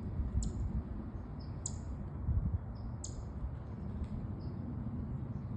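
Small birds calling with short, high chirps: three sharper ones about a second and a quarter apart, each just after a softer note, with a fainter pair near the end. A low steady rumble runs underneath.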